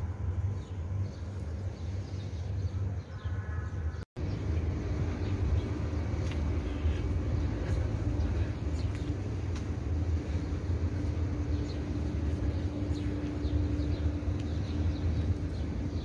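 Outdoor ambience recorded on a phone: a steady low rumble with occasional faint bird chirps and a faint steady hum in the middle. There is a brief dropout about four seconds in.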